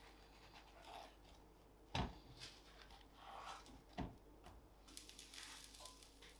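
Two sharp knocks of a plastic spatula and bread against a nonstick frying pan, about two seconds apart, as slices of egg-soaked toast are pressed and flipped, with soft scraping and a faint frying hiss after them.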